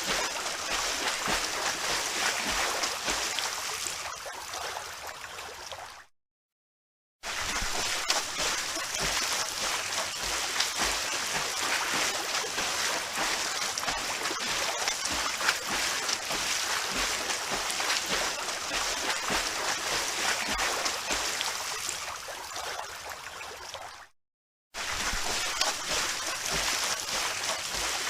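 Swimmer's strokes splashing and churning the water in a steady, continuous wash. Twice it fades out to a second or so of silence and then starts again abruptly.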